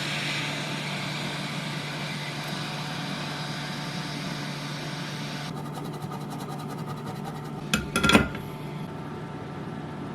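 Hot-air rework station blowing steadily, a fan hum under an even hiss of air, as a chip is lifted off a logic board; the upper hiss drops away about halfway through. A couple of sharp clicks come about eight seconds in.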